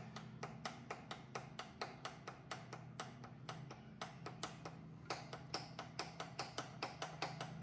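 Knee mill table traversing, a steady low hum with even ticks about five a second, as the vise jaw is run along a drill shank held in the spindle collet to check that the vise is square to the table travel.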